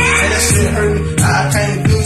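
Hip hop music: a rap track's beat, with a heavy, sustained bass line and regular drum hits.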